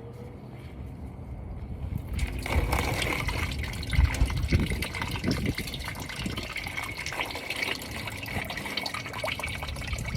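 Used engine oil running out of the 3.0 Duramax's loosened oil filter and splashing into a drain pan, starting about two seconds in and pouring steadily.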